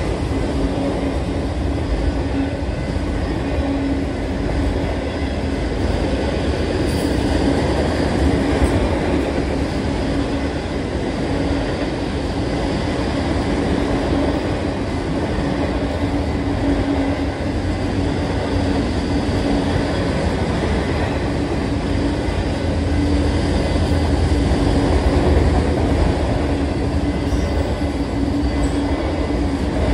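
Union Pacific manifest freight train's autorack cars rolling past at speed: a continuous heavy rumble of wheels on rail, with a steady low hum running under it.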